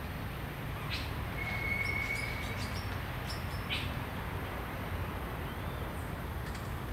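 Rufous-tailed jacamar giving short, sharp high calls, twice, a few seconds apart. Between them a steady whistled note is held for about a second, with a few faint very high peeps, over a low background rumble.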